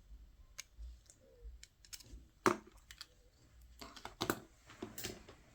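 Scattered light clicks and taps of small tools and parts handled on a workbench during a phone repair. The loudest comes about two and a half seconds in, with two more near the end.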